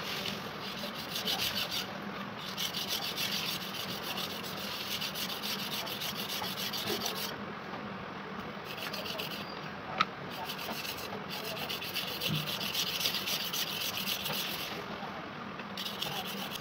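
Steel knife blade being stroked fast back and forth on a wet sharpening stone: runs of steady rasping strokes that stop twice for a couple of seconds. A single sharp click about ten seconds in.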